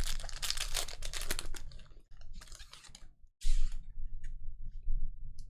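Trading cards being flicked through and slid against each other. A quick run of clicks and rustles is followed by a few short swishes and scattered light ticks.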